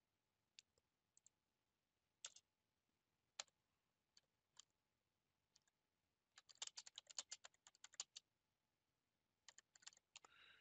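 Faint computer keyboard typing: a few scattered single clicks at first, then a quick run of keystrokes about six seconds in and a shorter burst near the end.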